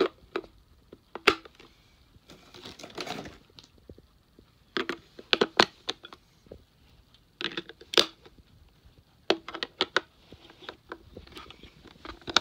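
AA batteries being fitted into the plastic battery compartment of a weather radio: irregular sharp clicks and knocks of batteries against the springs and plastic as the unit is handled.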